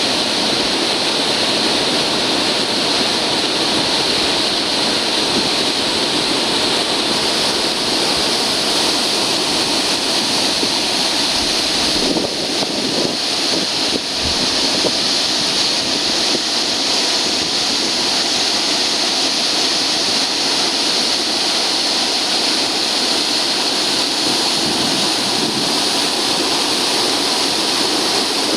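Waterfall on a mountain stream, its water crashing down in a loud, steady rush.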